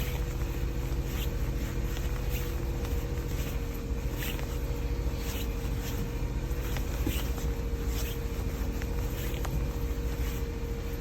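Suzuki Every kei van running at idle, a steady low rumble with a constant hum, with short faint high-pitched sounds every second or so.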